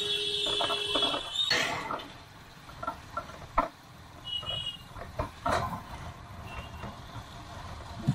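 Vehicle horn in town traffic, heard over the low noise of a motorcycle ride: one long honk for about the first second and a half, then short beeps a few seconds later. Scattered knocks and clatter come in between.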